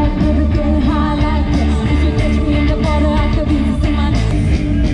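A live rock band playing loudly with a singer, a heavy bass and drums under the wavering vocal line.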